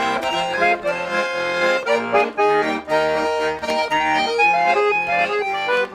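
Garmon (Russian button accordion) playing an instrumental passage of a folk-style song: a melody over sustained chords.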